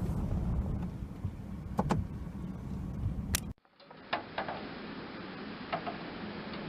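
Wind buffeting the microphone, a steady low rumble with a few sharp clicks, cutting off abruptly about halfway through to a steady hiss with faint clicks.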